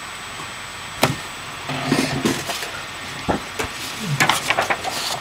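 Handling noise close to the microphone: a scattered run of knocks, clicks and rustles as the paper backdrop and foam toys are moved around.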